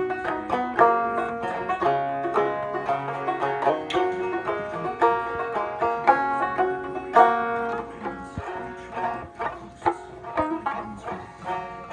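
Instrumental music on a plucked string instrument: a quick run of picked notes playing a tune.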